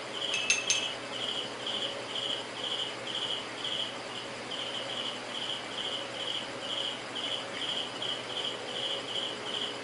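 An insect chirping steadily in the background, short high chirps repeating about two and a half times a second, with two sharp clicks about half a second in.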